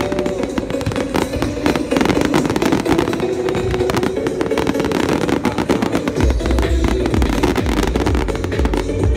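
Fireworks going off, with repeated sharp bangs and crackling, over music playing on loudspeakers for a pyromusical show. A strong low rumble comes in about six seconds in.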